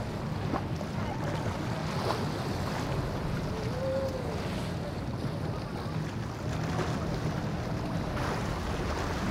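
Motorboat engine running steadily under way, a low hum under the rush of the hull's wake and spray, with wind on the microphone.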